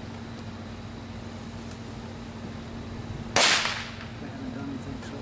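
A single sharp firework bang about three and a half seconds in, dying away within half a second, over a steady low hum.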